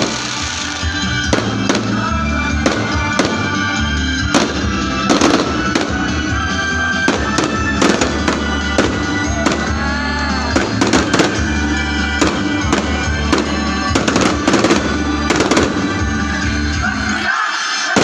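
Fireworks going off in a long irregular series of sharp bangs, over loud festive music.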